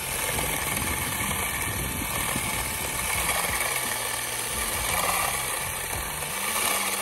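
Cordless drill spinning a 3D-printed plastic mower blade at speed as it cuts through grass, the motor running steadily.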